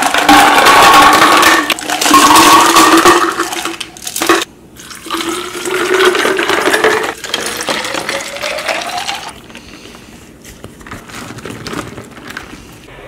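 Water poured from a gallon jug into plastic water bottles in two pours, with a short break between them about four seconds in. Each pour gurgles and splashes, and the pitch rises as the bottle fills. After that come quieter handling sounds and a few small knocks as the lids go on.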